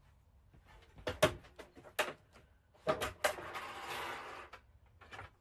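A handful of sharp knocks and clacks over about two seconds, like things being set down or a cabinet door being handled, followed by a second or so of scraping or rustling.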